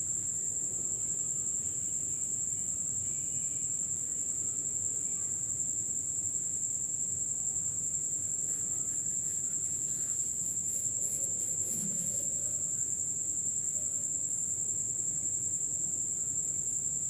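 Chopped onions frying in hot oil in a kadhai and being stirred with a steel spoon, with faint scraping strokes around the middle. Above it, a steady high-pitched whine holds at one pitch and is the loudest sound.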